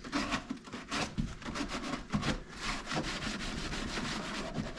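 Wooden Gerstner tool chest being rubbed down by hand, wiping off old finish and stain: a run of quick back-and-forth scrubbing strokes that become faster and more even in the second half.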